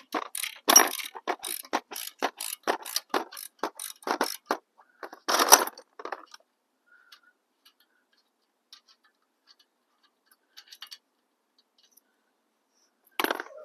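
Socket ratchet wrench clicking quickly, about four clicks a second, as a bolt on the motorcycle's exhaust is backed out, with a longer rasp near the end of the run; it stops about six seconds in, leaving only a few faint ticks.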